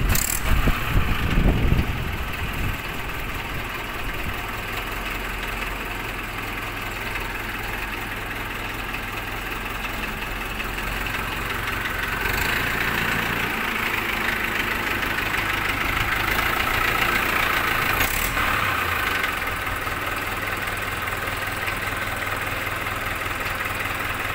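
1994 Mahindra 575 DI tractor's four-cylinder diesel engine firing up, loud and uneven for the first couple of seconds, then settling into a steady idle. It runs a little louder from about halfway, then cuts off suddenly at the end.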